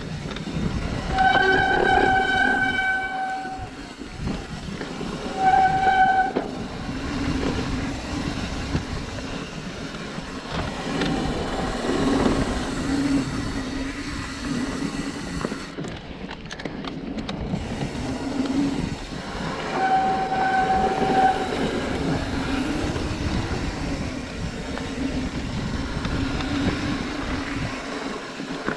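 Mountain bike rolling down a dirt trail with a steady rumble and rattle from the tyres and frame, as the brakes squeal in a single high tone three times: for about two seconds a second in, briefly around five seconds in, and again around twenty seconds in.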